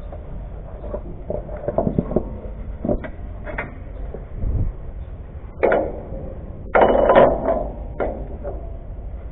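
A metal rod clinking and scraping against the steel leaves of a Fuso truck's leaf spring, in irregular knocks with two longer, louder scrapes about five and a half and seven seconds in, over a steady low rumble.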